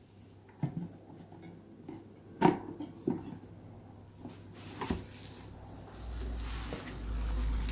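Handling noise from a double-sided wall clock with a metal bracket being turned over and worked apart: a few sharp knocks and clicks of plastic and metal, the loudest about two and a half seconds in. Near the end comes a longer rustling with a low rumble.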